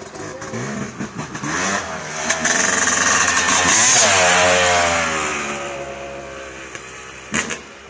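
2012 Yamaha YZ250 two-stroke motocross bike riding past in first gear: the engine grows louder and rises in pitch to a peak about four seconds in, then drops in pitch and fades away. A short sharp noise comes near the end.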